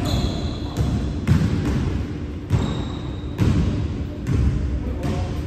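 A basketball bouncing on a hardwood gym floor, about once a second, with a couple of short sneaker squeaks, all echoing in a large gym.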